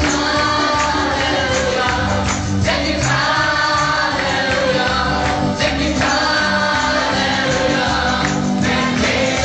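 Live gospel worship song: a man and a woman sing through microphones over an electric guitar and keyboard band, recorded on a mobile phone.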